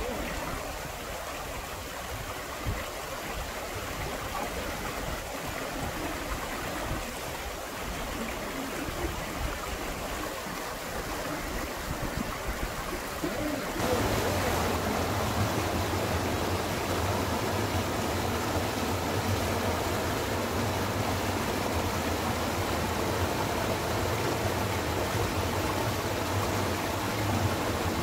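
Mountain stream water running over granite into a pool, a steady rushing that grows louder and fuller about halfway through.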